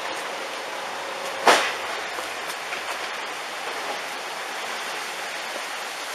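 Tsunami floodwater surging through a street, a steady rushing noise, with one sharp bang about one and a half seconds in.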